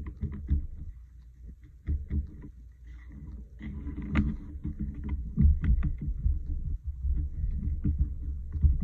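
Soft, repeated dabbing and rubbing of a small sponge pouncing acrylic paint through a plastic stencil onto card on the tabletop, with some handling of the stencil and paper. It gets busier and louder after a few seconds.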